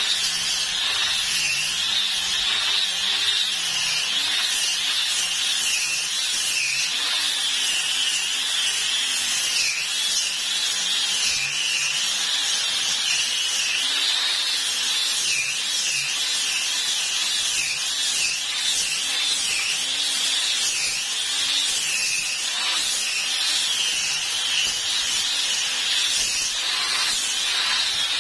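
Handheld electric disc sander running against a wooden plank. Its motor whine dips and rises in pitch as it is pushed and pressed across the wood. It is sanding back a patch of dried homemade wood filler made from wood glue and sanding dust.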